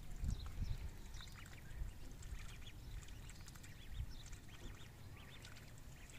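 Ducklings peeping: many short, high calls in quick succession over a low rumble.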